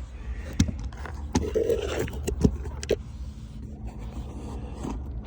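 A cardboard shipping box being handled and worked at inside a car: a few short knocks and a scrape, over the car cabin's steady low hum.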